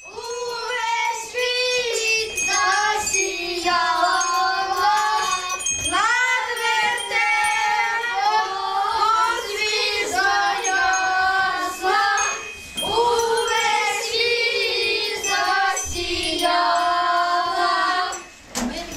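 A group of children singing a Christmas carol together in unison, phrase by phrase, with short breaks between lines. A small bell jingles faintly now and then.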